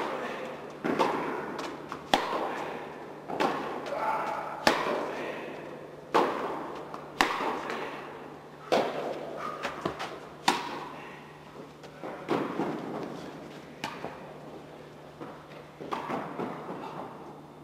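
Tennis rally: racket strikes and ball bounces crack sharply about once a second, each ringing on in the echoing indoor tennis hall. The hits grow fainter and sparser over the last few seconds.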